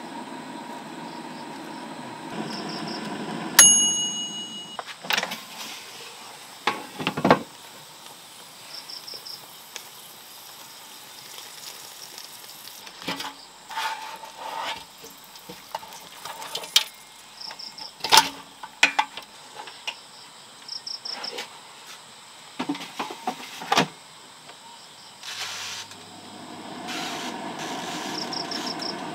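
Irregular knocks and clatter from objects being handled, one of them a metallic clang that rings briefly about three and a half seconds in. Crickets chirp in short bursts in the background.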